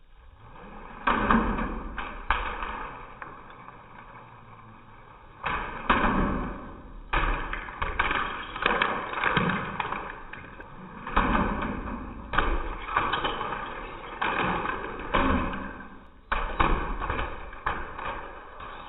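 LEGO cars crashing: a series of sudden knocks and clatters of plastic bricks hitting and breaking apart, each dying away over about a second, coming again and again.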